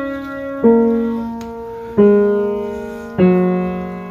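Background piano music: slow, separate notes struck about once every second and a bit, each ringing out and fading, stepping down in pitch.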